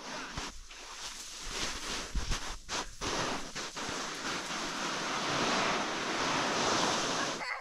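Wind rushing over the microphone in gusts, a steady hiss that dips briefly a few times and stops abruptly near the end.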